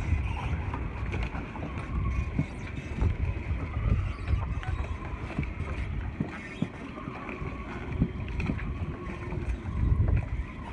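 Wind buffeting the microphone in gusts, with footsteps on a concrete floating dock about once a second.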